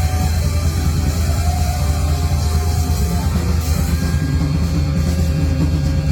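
A live rock band playing loud heavy rock, with guitar over a heavy, steady low end and no pause.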